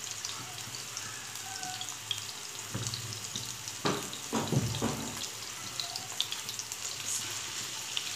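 Minced-chicken seekh kebabs frying in ghee in a nonstick pan, with a steady sizzle and crackle of hot fat. A few louder knocks come just before halfway.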